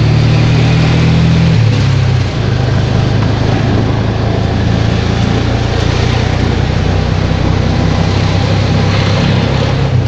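Small engine of a green CNG auto-rickshaw running steadily on the move, heard from inside the cab together with road and wind noise. The engine note drops slightly about two seconds in.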